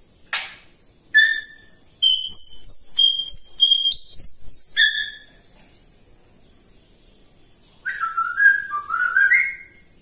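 African grey parrot whistling: a run of clear whistled notes hopping up and down in pitch, then after a few seconds' pause a second run of notes sliding up and down near the end.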